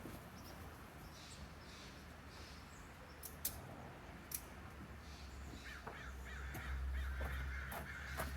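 Crows cawing faintly, with a few sharp clicks and a low hum that swells near the end.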